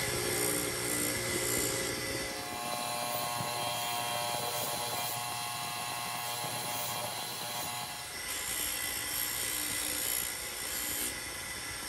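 Bench buffer motor running with its sewn cotton buffing wheel spinning while a brass hex bar is polished on it: a steady whir of several steady tones. Its tone changes a little from about two and a half seconds in until about eight seconds in.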